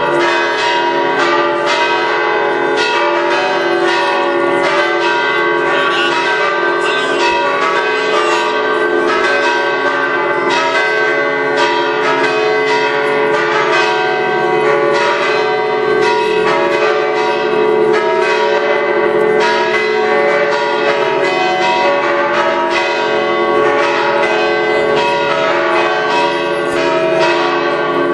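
Church bells pealing loudly: a fast, uneven run of many strokes from several bells, their tones overlapping and ringing on without pause.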